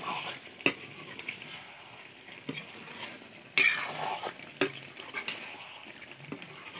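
A metal spatula stirs and scrapes a simmering meat-and-potato curry in a metal kadai, over a steady sizzle from the pan. Several sharp clinks of the spatula against the pan come through, with the loudest scrape about halfway through.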